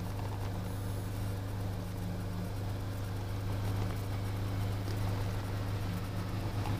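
Steady low mechanical hum from a running motor.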